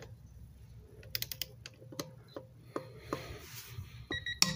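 Craftsman 3/8-inch click-type torque wrench ratcheting on a lug nut in short runs of clicks. Near the end a digital torque adapter gives a short electronic beep, and the wrench makes a sharp click as it breaks over at its 50 ft-lb setting.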